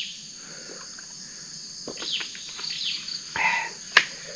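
A steady high insect drone with scattered short bird chirps over it, and one sharp click about four seconds in.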